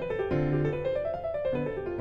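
Background piano music: a melody of short notes stepping up and down over low held bass notes.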